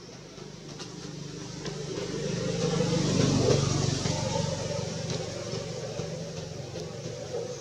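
A motor vehicle's engine passing by: it grows steadily louder to a peak about three seconds in, then slowly fades.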